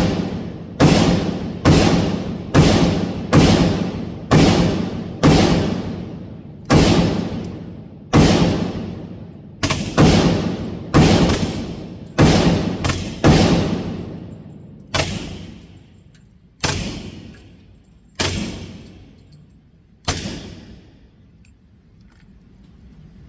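About twenty single gunshots fired one at a time, a little under a second apart at first and more slowly spaced later, each shot followed by a long fading echo.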